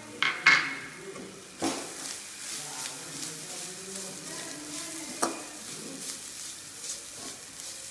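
A steel spoon stirring grated coconut into onion and chilli-powder masala in an aluminium kadai, scraping over the pan. There are a few sharp clinks of metal on metal, two close together at the start and the loudest, over a light sizzle of oil.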